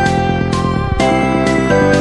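Background music with a steady rhythm and a melody of short pitched notes.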